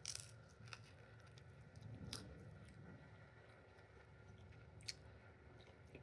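Faint chewing of a breakfast taco made with turkey meat and rice, with a few soft mouth clicks and crunches, the most noticeable near the start, about two seconds in and about five seconds in.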